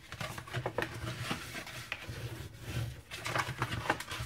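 White cardstock being folded along its score lines and burnished flat by hand: irregular crisp crinkles and paper rustling, loudest near the end, over a low rubbing sound.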